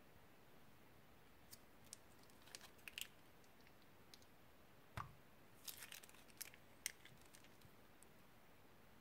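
Quiet, sparse crinkling and clicking of a clear plastic bag being handled and squeezed, with a soft thud about five seconds in, as thick white liquid is pressed out of the bag into a bowl.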